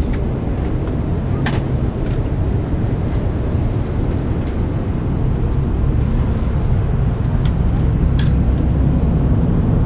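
Steady cabin noise of an Airbus A340-300 in flight: an even, low rush of engines and airflow, with a few faint clicks.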